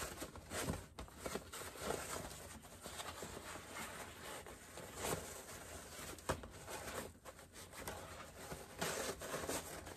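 Rustling and crinkling of quilt cotton and stiff waterproof canvas being handled and pulled through as a sewn bag is turned right side out, with scattered soft rubs and taps.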